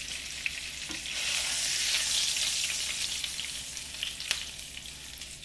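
Pork-rind-breaded cod fillets frying in hot bacon grease in a pan: a steady sizzle that swells and then eases off. A sharp click about four seconds in.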